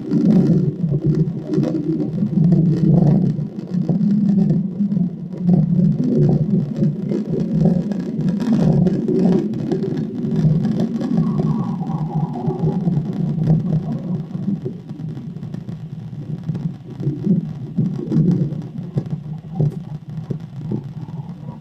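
Recorded sound of a car driving past, played back through computer speakers: a low, uneven drone that swells and fades throughout.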